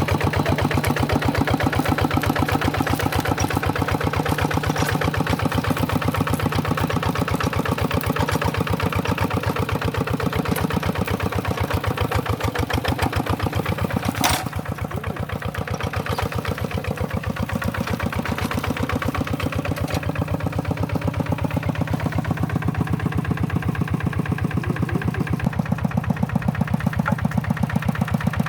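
Tractor engine running steadily with an even, fast firing pulse. A single sharp click comes about halfway through, after which the engine runs a little quieter for several seconds before picking up again.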